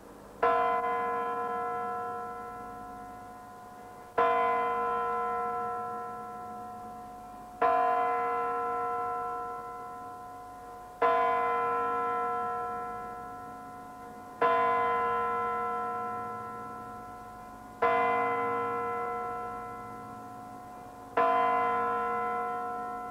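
The hour bell of the Kremlin's Spasskaya Tower clock striking midnight, seven slow strokes about three and a half seconds apart, each ringing on and fading before the next.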